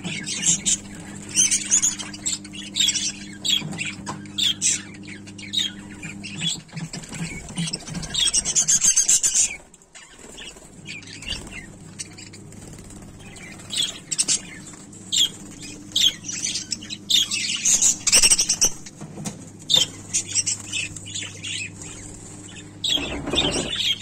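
A flock of budgerigars chattering: a dense run of short, high chirps and warbles, with a brief break about ten seconds in. A low steady hum runs underneath.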